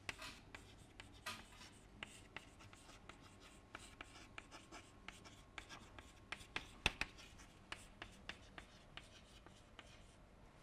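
Chalk writing on a blackboard: faint, irregular taps and scrapes as words are chalked out, with one sharper tap about seven seconds in.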